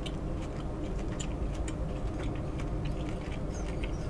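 Close-miked chewing with the mouth closed: soft, irregular clicks and wet mouth sounds, a few a second, over a steady low hum.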